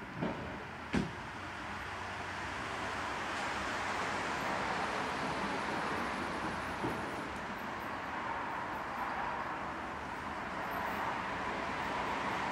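Class 701 diesel tower railcar approaching from a distance: a steady engine and running noise that slowly grows louder. Two sharp clicks in the first second are the loudest sounds.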